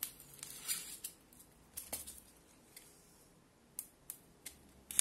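Wooden toothpicks being snapped into pieces by hand: a brief rustle, then a few small separate snaps and clicks.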